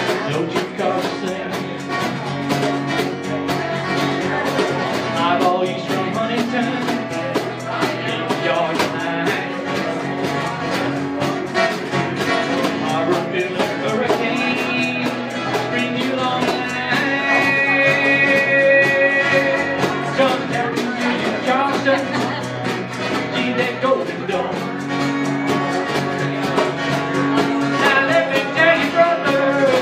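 Live acoustic guitar strummed with a djembe hand drum keeping the beat, playing an upbeat country-style train song.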